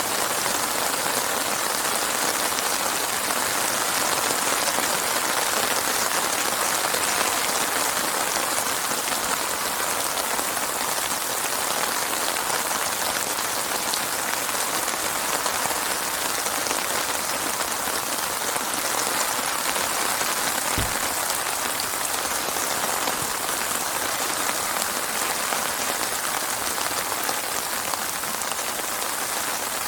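Steady rain falling and pattering on surfaces, without thunder. A single faint low thump comes about two-thirds of the way in.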